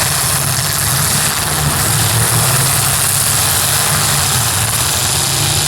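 Modified demolition derby cars' engines running, a loud steady low drone.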